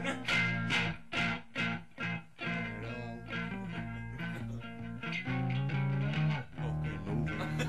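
Heavy metal band playing, led by electric guitar with bass guitar. It plays short stop-start chord hits with gaps between them, then settles into fuller held chords over a steady bass line from about five seconds in.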